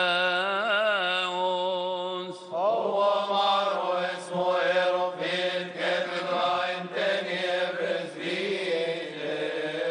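Coptic deacons chanting a melismatic liturgical hymn: for the first two seconds or so a long held note wavers up and down over a steady lower note, then the melody moves on in long flowing phrases sliding up and down.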